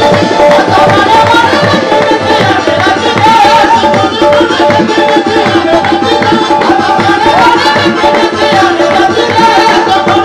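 Qawwali music playing: harmonium melody and held notes over a fast, steady tabla beat.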